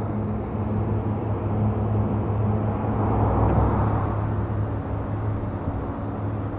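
Car on the move: steady low drone of engine and tyre road noise, swelling slightly about three seconds in.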